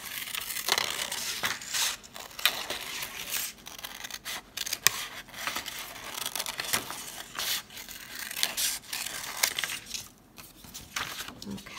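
Scissors snipping through a sheet of construction paper in many short, irregular cuts, the paper rustling as it is turned by hand between snips.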